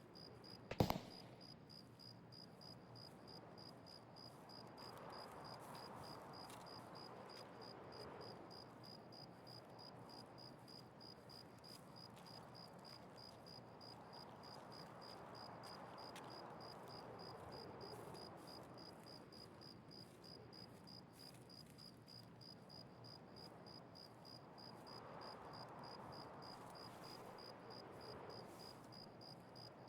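Faint, evenly paced high chirping of an insect, with a low steady background hiss, and one sharp crack about a second in.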